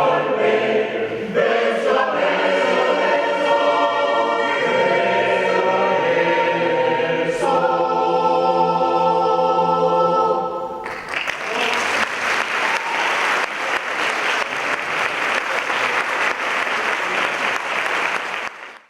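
A choir sings the closing phrase of a piece and holds its final chord. About eleven seconds in, the singing stops and the audience applauds until a sudden cut near the end.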